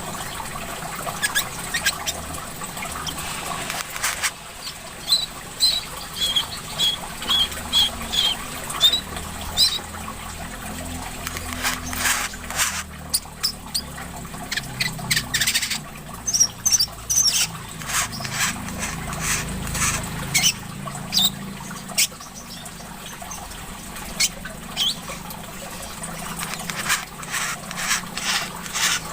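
Korlap (wiceh/mangar) songbird singing a rapid string of short, high chirps and sharp clicking notes, over a steady trickle of running water.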